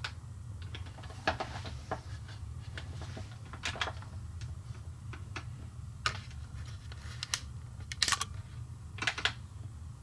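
Light, irregular clicks and taps from a 1/24 scale diecast model truck being handled, over a steady low hum.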